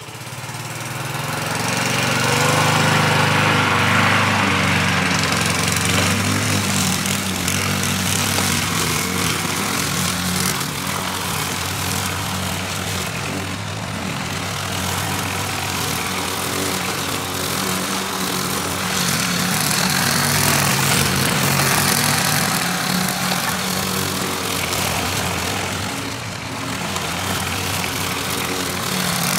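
Walk-behind lawn mower engine starting up and running while mowing long grass. It comes up to speed over the first couple of seconds, then runs steadily, swelling and easing a little as the mower moves about the yard.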